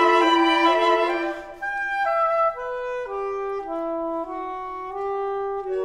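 Saxophone quartet of soprano, alto, tenor and baritone saxophones playing chamber music in sustained chords. A full, loud chord thins out about a second and a half in, and the saxophones go on more softly with held notes moving in steps.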